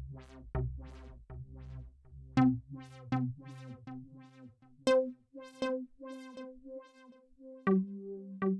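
Dave Smith Instruments Prophet 6 analog polyphonic synthesizer playing a preset patch with no external effects. Each note has a sharp, bright attack that fades quickly over a held tone, at about two notes a second. The notes climb in pitch and then drop back low near the end.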